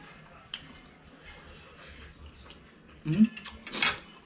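A man eating fiery spicy noodles: faint clicks of forks on the plate, then about three seconds in a short grunt followed by a loud, sharp burst of breath out through the mouth as he reacts to the heat.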